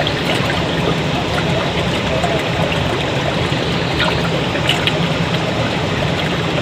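Stream water running and trickling over stones, a steady rushing.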